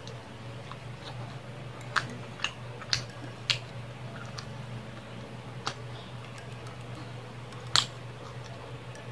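Close-up eating of grilled skewered meat: chewing with about six sharp, wet mouth clicks and smacks, over a steady low hum.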